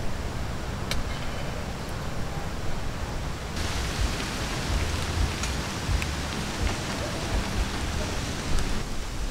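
Steady rain falling in a forest, an even hiss with a low rumble of wind underneath and a few faint sharp ticks. About three and a half seconds in the hiss turns brighter and stronger.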